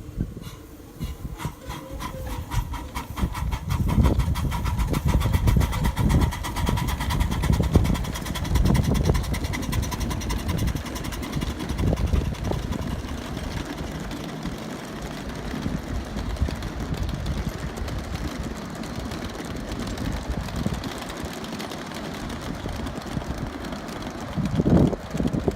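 Miniature live-steam locomotives working a long train: fast, even exhaust chuffing over the rumble of the cars rolling on the track.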